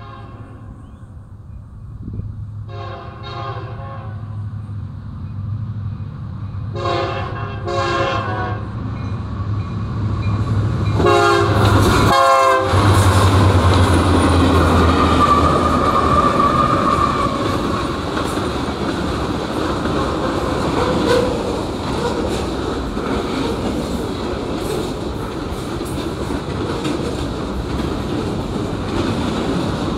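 Union Pacific freight train's diesel locomotive air horn sounding a long blast, two short ones, then a loud long one as the locomotives pass. The diesel engines rumble past, followed by freight cars rolling by with steady wheel clatter over the rails.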